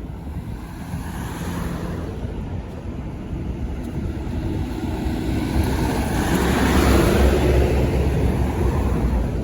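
A road vehicle driving past, its engine and tyre noise growing louder to a peak about seven seconds in, then easing off slightly.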